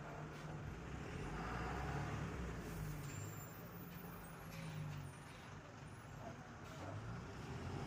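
Diesel engine of a large goods truck running at low speed as it manoeuvres through a tight turn: a steady low engine hum that eases off somewhat after the middle and picks up again near the end.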